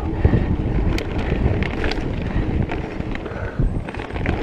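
Wind noise on the microphone over the low rumble of mountain bike tyres rolling on a dirt trail, with a few sharp clicks and rattles from the bike.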